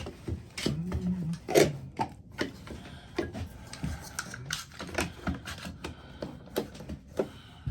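Irregular clicks and knocks of clamps being handled and tightened on a glued wooden table leg.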